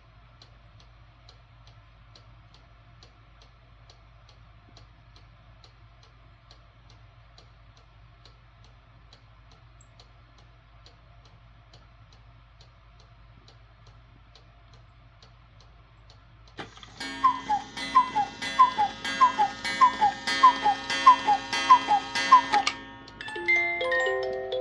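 Regula 25 cuckoo clock movement ticking evenly, about two ticks a second. About 17 seconds in the cuckoo calls, a two-note falling call repeated many times over with the mechanism clattering, and near the end a music box starts playing a tune.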